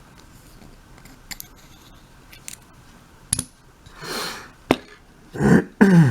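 Small sharp clicks and taps of a mortise lock cylinder and its parts being handled during disassembly. Near the end, a sniff and two short vocal sounds falling in pitch.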